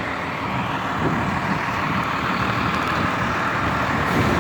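City street traffic: a steady wash of road noise from passing vehicles, with the sound of heavy engines, that grows a little louder about a second in.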